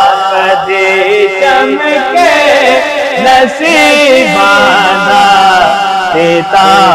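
Solo male voice singing a Punjabi naat, a devotional song in praise of the Prophet Muhammad, in long held notes with wavering, ornamented turns.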